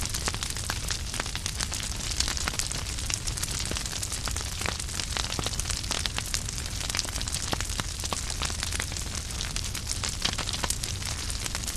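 Wood fire burning in a fireplace: a steady rushing hiss and low rumble of the flames, with frequent sharp, irregular crackles and pops from the burning logs.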